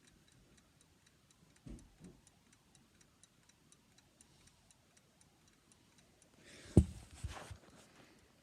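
An alarm clock's opened movement ticking steadily, about three quick ticks a second. A couple of thumps come about two seconds in, and a louder clatter of handling knocks near the end.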